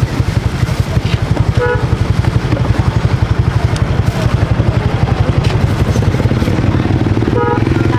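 A small engine running steadily with a rapid low pulsing, rising slightly in pitch near the end. Two brief higher tones cut in, about two seconds in and again near the end.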